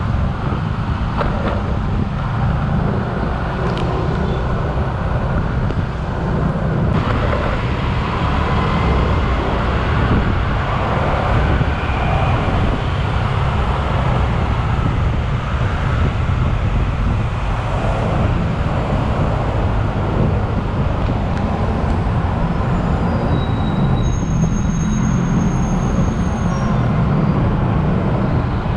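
Motorcycle riding through city traffic: a steady, loud rumble of engine and road noise.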